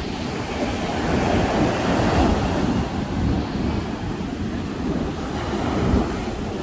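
Sea surf breaking and washing up a sandy beach, swelling about a second in and again near the end, with some wind on the microphone.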